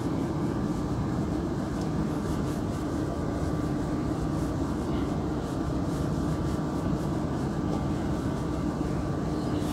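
Steady machine hum with a low steady tone, holding at one level throughout: room background noise of the kind an air conditioner makes.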